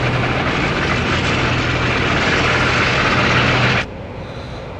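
Loud, steady mechanical running noise with a constant low hum under a dense hiss. It cuts off suddenly near the end, leaving a quieter steady background hiss.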